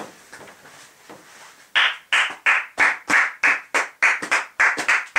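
Rhythmic hand clapping, about three claps a second, starting a little under two seconds in after a moment of quiet shuffling.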